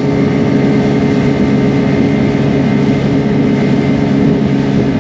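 Yamaha outboard motor on a 1985 McKeeCraft runabout, running steadily at speed with an unchanging pitch, over the rush of water and wind.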